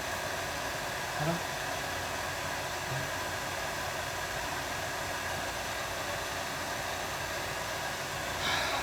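Hair dryer blowing steadily with a constant whooshing hiss.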